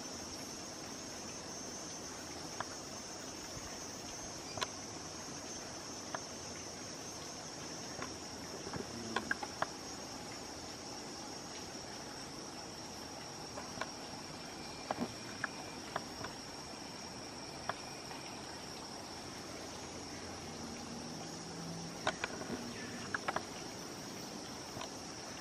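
A steady, high-pitched insect chorus of tropical forest, with a few sharp clicks and ticks scattered through it.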